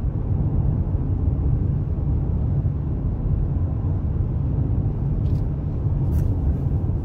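Steady low road and engine rumble inside a moving car's cabin, with two brief faint hisses near the end.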